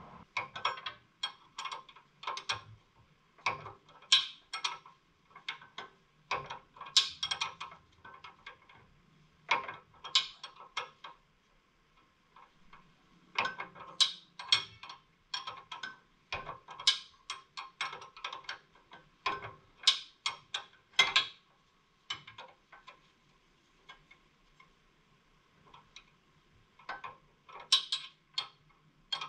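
Ratcheting wrench clicking in short runs of quick clicks with pauses between them, as the sway bar link's nut is loosened.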